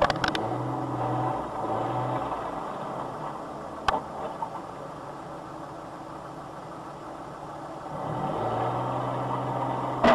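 Vehicle engines running with a low, steady hum that grows louder about eight seconds in, with sharp clicks at the start and about four seconds in.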